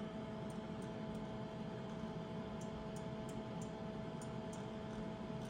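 Steady hum and hiss of running electronic equipment, with two faint steady tones and faint ticks about three times a second.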